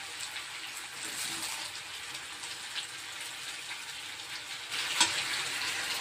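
Rice sizzling in a metal pan over a gas flame as it is stirred and turned with a metal spatula, with a steady hiss. There is a sharp clink of the spatula against the pan about five seconds in.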